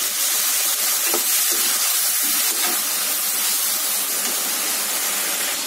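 Water poured into a hot kadai of frying onions and spices, hitting the hot oil and turning to steam: a loud, steady sizzling hiss that eases only slightly as it goes on.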